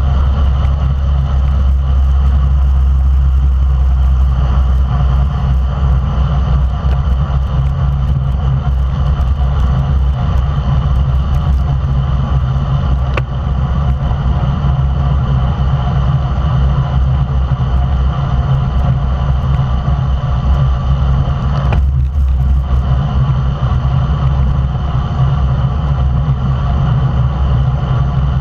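Loud, steady wind rumble buffeting a bike-mounted action camera's microphone as a road bike rides at racing speed, with road tyres rolling on asphalt underneath.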